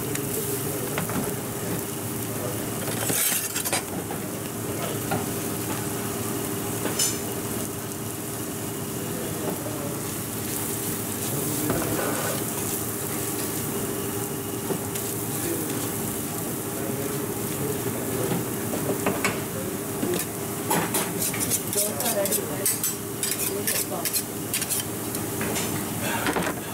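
A dosa sizzling on a hot flat griddle, with a steel spatula scraping and tapping on the griddle as the filling is mashed and spread over the dosa. The taps come quick and close together in the last several seconds.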